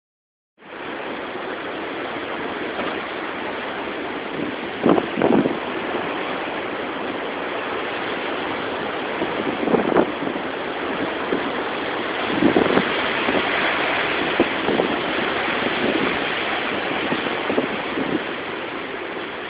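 Storm wind and rain in a steady, loud rush, with several brief louder surges now and then.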